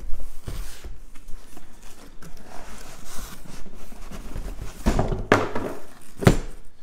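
Corrugated cardboard shipping box being handled on a table: flaps scraping and rustling, then three sharp knocks in quick succession near the end as the box bumps down onto the tabletop.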